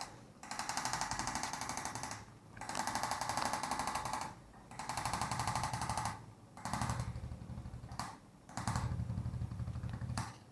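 Electric vibrating massager buzzing with very fast, even pulses against the patient's back, in about five bursts of one to two seconds separated by short pauses as it is pressed on and lifted off. The later bursts sound lower and duller.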